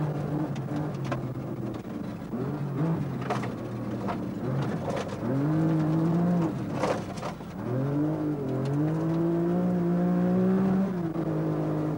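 Rally car engine heard from inside the cabin, revving hard: the engine note climbs about five seconds in, breaks off, then climbs again and is held high until near the end. A few sharp knocks sound over it.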